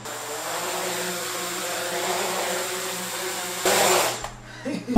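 Modified DJI Mavic Air 2 drone's motors and propellers spinning up to a steady whir, with a louder surge about three and a half seconds in as it lifts briefly off the carpet, then dropping away.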